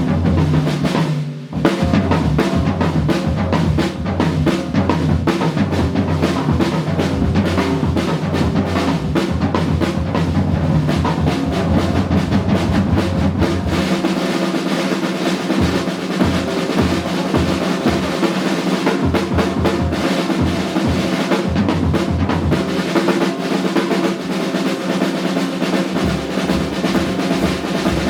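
Live jazz combo playing, with the drum kit to the fore: busy snare and cymbal work over sustained pitched notes from the rest of the band. The music briefly dips about a second in, then carries on.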